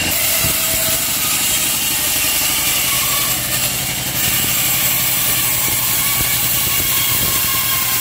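Band sawmill running without load: the drive and band blade turning with a steady hum and hiss.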